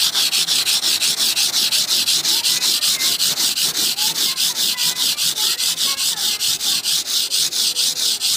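Coarse 80-grit sandpaper rubbed by hand over dried body filler on a car bonnet, fast back-and-forth rasping strokes at about five a second, flattening the filler level. The strokes stop abruptly near the end.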